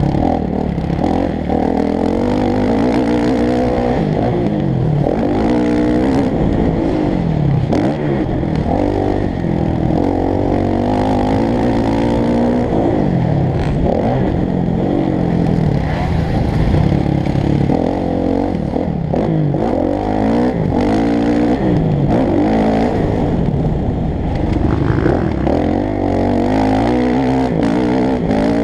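Motocross bike engine heard from the onboard camera, revving up and dropping back again and again as the rider goes through corners and over jumps. It sounds muffled, with little above the low and middle range.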